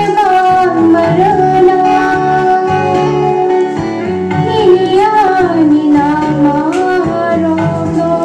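A woman singing a solo song in Kokborok through a microphone, with long held, gliding notes over an instrumental accompaniment that has a steady, repeating low beat.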